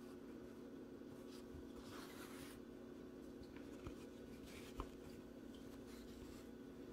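Faint rustling of yarn being drawn through crocheted stitches with a yarn needle, with two small clicks about four and five seconds in, over a steady low hum.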